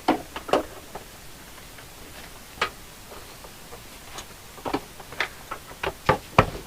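Sharp clicks and taps of an interior trim panel being handled and fitted: a few near the start, a lone one around the middle, then a quicker run of them near the end.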